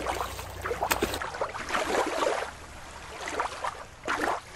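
Water splashing and rushing in several uneven surges, the largest from a killer whale crashing back into a show pool.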